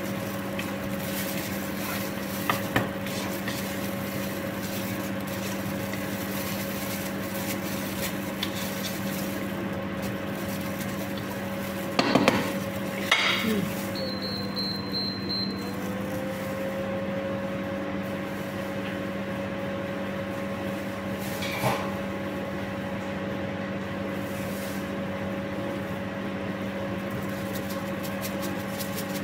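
A wooden spoon stirring in an enamelled cooking pot, knocking against it a few times, loudest twice about twelve and thirteen seconds in, over a steady hum of several pitches.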